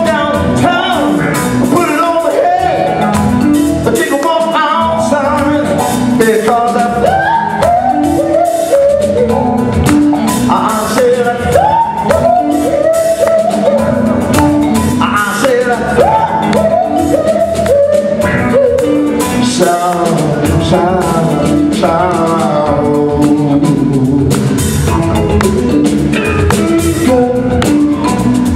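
Live band playing, with a man singing lead over drum kit, electric guitar, bass and keyboards.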